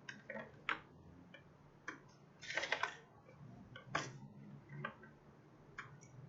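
Scattered light clicks and taps of hand-handled parts and tools on a repair bench, about six spread over a few seconds, with a short cluster of rattling clicks about halfway.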